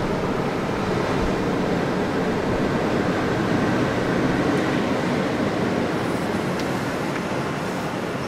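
Ocean surf heard as a steady, even roar, with a brief low bump of wind on the microphone about a second in.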